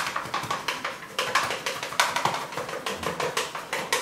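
Glass mixing bowl knocking and clinking as risen brioche dough is scraped out of it by hand onto a floured worktop: a quick, irregular run of sharp taps, several a second.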